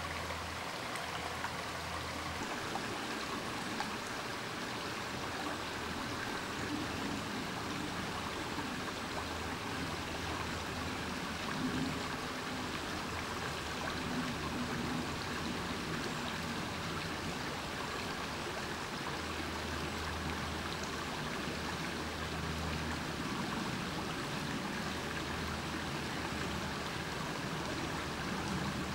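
A stream's running water, a steady rushing, with a low rumble coming and going underneath.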